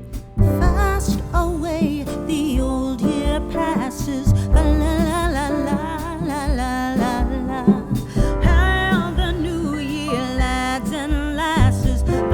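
A song: a lead singer's voice, wavering with heavy vibrato, over a band with strong bass.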